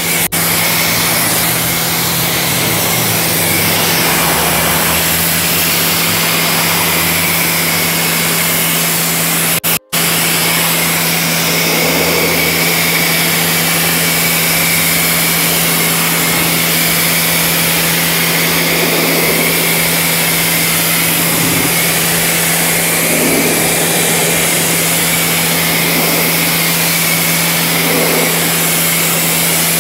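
Pressure washer running steadily, its motor hum under the hiss of the water jet spraying a car's paint. It cuts out for an instant about ten seconds in, then carries on.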